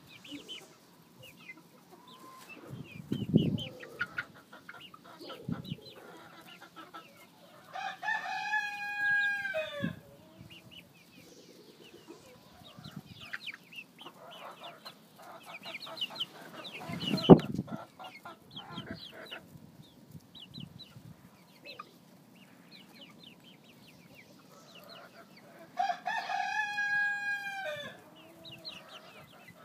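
A flock of nine-week-old Dominique and Red Dorking chickens clucking and peeping, with a cockerel crowing twice, each crow about two seconds long, about eight seconds in and near the end. A few low thumps, the loudest just past halfway.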